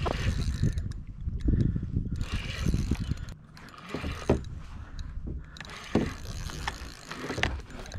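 Fishing reel on a light sabiki rod being wound and clicking in irregular spurts while a hooked mahi-mahi is fought at the side of a kayak.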